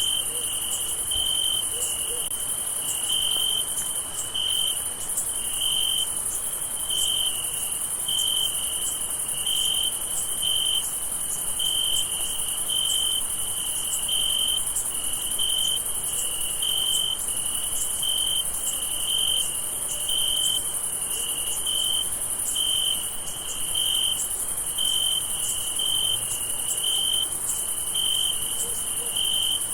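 Crickets chirping at night: a pulsed chirp repeats about once a second in a steady rhythm over a continuous high-pitched trill.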